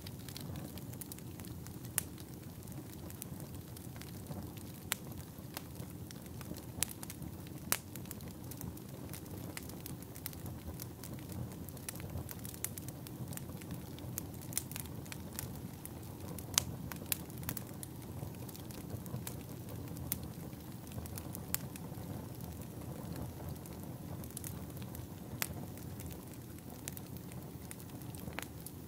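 Wood fire crackling: a steady low rush with irregular sharp pops and snaps scattered throughout.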